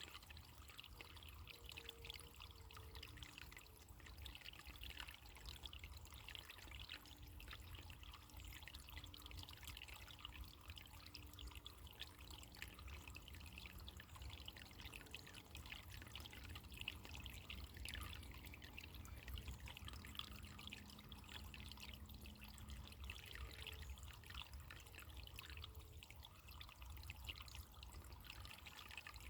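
Running water trickling and splashing steadily, like a small stream or brook flowing over stones.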